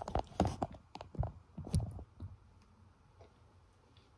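A string of soft clicks and knocks from a camera being handled and settled into place, packed into the first two seconds or so.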